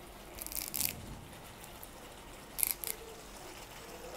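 Fresh leaves being torn and crumpled by hand over a pan of chilli chutney: two short bursts of crisp crackling, about half a second in and again near three seconds in, over a faint background.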